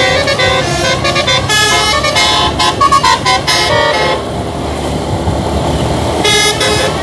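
Indonesian bus "telolet" musical air horn playing a fast tune of stepped notes for about four seconds, then sounding again in one short blast near the end. A low rumble runs underneath.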